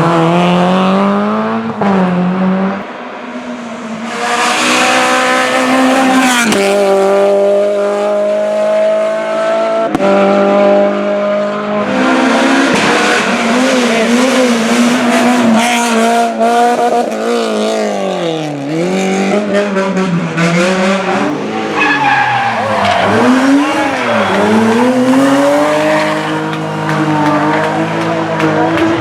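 Rally cars driven hard on a stage: engines revving high, the pitch climbing and dropping with gear changes and braking, and tyres squealing as the cars slide through corners. Several passes follow one another, with abrupt changes between them.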